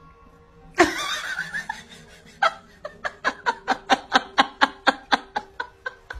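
A person laughing in a quick run of snickers, about four to five a second, growing fainter toward the end, after one loud sharp burst about a second in.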